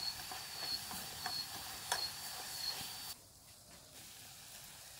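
An insect keeps up a high, pulsing trill, about two pulses a second, over a steady hiss, with a few sharp clicks. About three seconds in, the trill and hiss cut off suddenly, leaving a fainter, duller hiss.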